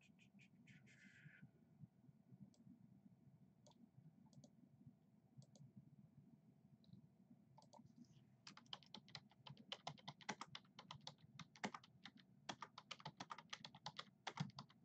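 A few scattered clicks, then from about eight and a half seconds in, faint rapid typing on a computer keyboard.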